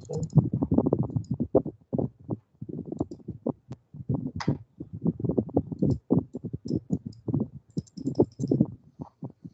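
Typing on a computer keyboard close to the microphone: a rapid, irregular patter of keystrokes.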